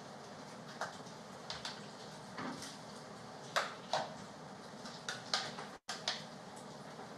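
Scattered light clicks and knocks, about ten of them at uneven spacing, over a steady background hiss. The audio drops out for an instant about two-thirds of the way through.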